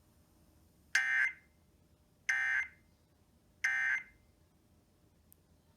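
Emergency Alert System end-of-message (EOM) code: three short bursts of data tones, a little over a second apart, signalling that the alert message has ended.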